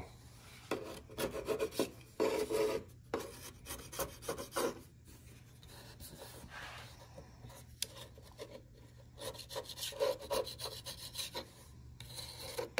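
Handheld metal scraper shaving raised MDF fibres flush around screw holes in a CNC wasteboard. It goes in repeated, irregular scraping strokes.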